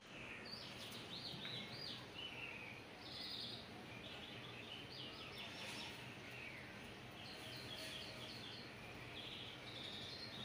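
Birds chirping and trilling over and over, the calls overlapping at different pitches, above a faint steady background hiss.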